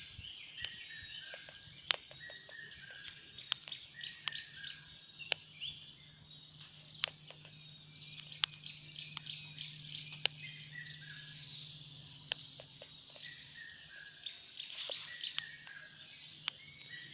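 Birds chirping and twittering in the background, with scattered sharp clicks and a faint low hum through the middle.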